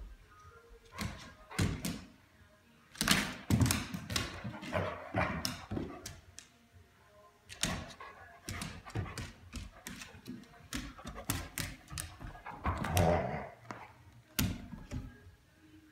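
A dog moving about on a hardwood floor: irregular thumps, knocks and clicks, busiest from about three to six seconds in and again near thirteen seconds.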